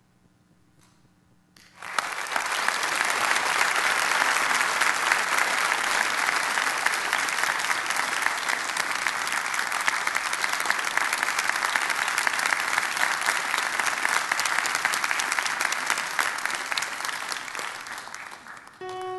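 Congregation applauding, setting in suddenly about two seconds in, holding steady and dying away near the end.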